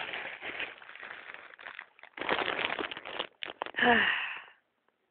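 Bedclothes rustling and crackling in two long bouts as someone settles into bed, then a short falling sigh about four seconds in.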